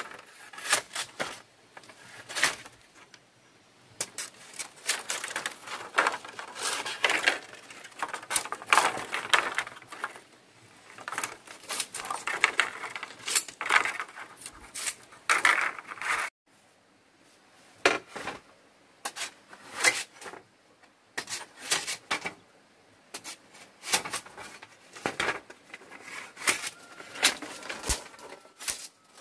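Bamboo being split with a knife and the split strips handled: a dense run of cracking and clattering wood, then after a short break about halfway, separate sharp clacks as strips are pulled and knocked together.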